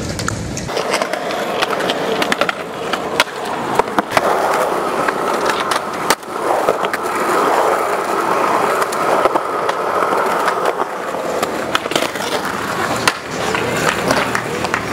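Skateboard wheels rolling over rough concrete, with sharp clacks of the board striking the ground several times as tricks are popped and landed.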